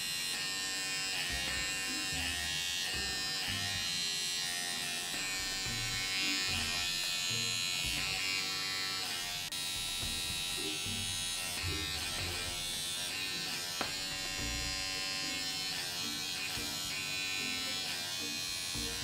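Panasonic EH2592PP battery-powered electric pore cleanser running steadily with a small-motor whine, its suction nozzle pulling strongly on the skin, with occasional low bumps.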